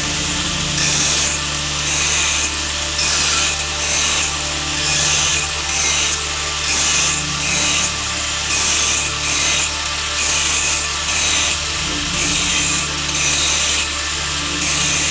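A hand tool scraped back and forth in steady rhythmic strokes, about two a second, like filing or sawing, over a steady low hum.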